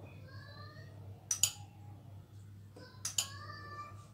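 A steel spoon clinking against bowls as melted ghee is spooned into flour: two quick pairs of clinks, about a second in and again near the end, each leaving a short metallic ring.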